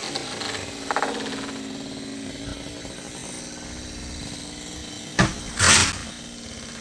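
Chainsaw engine idling with a steady hum. About five seconds in comes a sharp knock, followed at once by a brief loud rushing noise.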